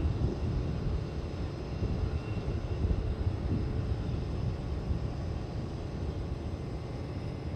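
Airbus A320neo jet engines running as the airliner rolls along the runway: a steady low rumble with a faint high whine above it.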